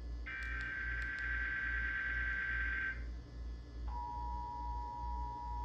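Emergency Alert System digital header, a harsh data warble, that stops about three seconds in; about a second later the EAS two-tone attention signal starts and holds steady. A low hum runs underneath.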